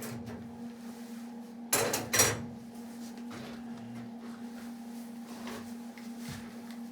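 Two sharp metal clanks about two seconds in, metal pieces knocking together as parts or tools are handled, over a steady hum.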